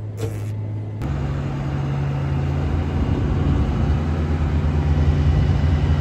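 Vehicle engine running steadily. About a second in, the sound switches abruptly to a louder, deeper engine that grows a little louder over the next few seconds.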